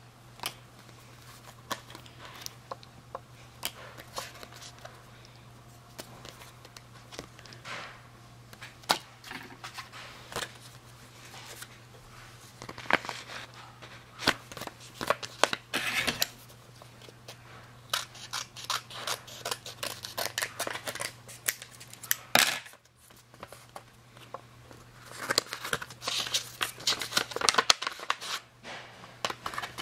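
Paper rustling and crinkling in short, irregular bursts as a paper envelope is handled and opened and stickers are pulled out, with occasional taps and clicks.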